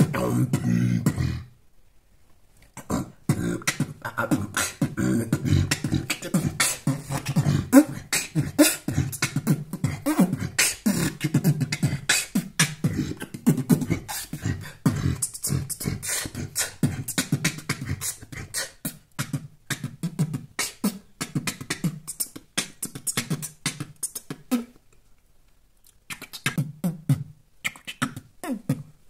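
Afrobeat-style beatboxing: a fast, rhythmic groove of mouth clicks, kick and snare sounds over a low bass line. It breaks off briefly about two seconds in and again near the end.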